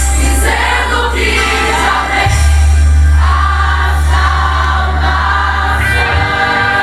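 Live gospel worship music: a group of voices singing over a band with a loud, sustained bass line.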